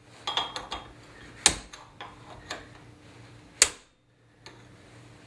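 Metal-on-metal chisel strikes against the inner bearing race of a wheel hub clamped in a vise: two sharp blows about two seconds apart among lighter taps and scrapes. The blows are meant to crack the race along a groove cut with an angle grinder so it splits off the hub.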